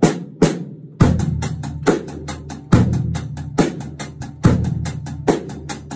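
Drum kit played in a steady beat, its snare drum muffled by a towel laid over the head so it sounds dead and dry; heavier bass drum hits come about every second and a half among quicker stick strokes.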